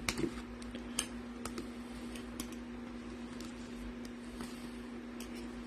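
Light handling noises: scattered soft clicks and rustles, a few close together near the start, as cards and plastic card holders are gathered and sorted, over a steady electrical hum.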